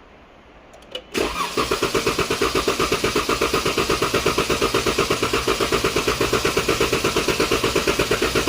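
2014 Dodge Durango's 3.6L Pentastar V6 being cranked over by the starter without starting (clear-flood crank for a relative compression test), an even, quick chugging beat that starts just over a second in. The mechanic suspects low compression on one cylinder, probably cylinder 4.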